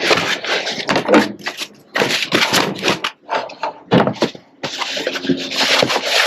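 Diesel heater kit parts being unpacked from their box: packaging rustling, with repeated knocks and clatter of parts being handled and set down.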